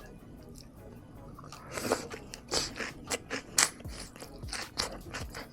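Close-miked biting and crunchy chewing of salad on pita shovels, starting about two seconds in with a loud bite and going on as a run of crisp crunches.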